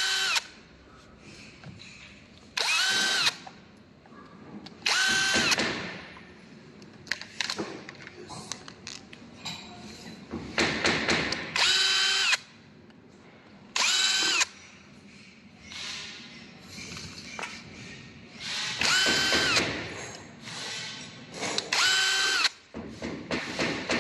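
Electric power drill driving screws out of an Airless SP450 airless paint sprayer as it is taken apart, in about eight short runs. Each run whines up to speed and winds down within a second or so, with tool and part clatter between.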